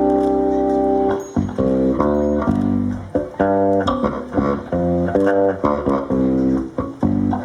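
Live band playing the instrumental introduction of a jazz-pop song: a chord held for about a second, then short, choppy chords played in a rhythm over the bass.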